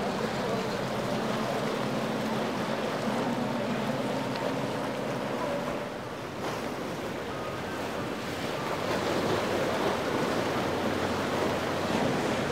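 Boat engines running over the rush of water and wind on the microphone. About halfway through, the sound changes to the louder rush of a large motor yacht running at speed, its engines under the noise of its spray and wake.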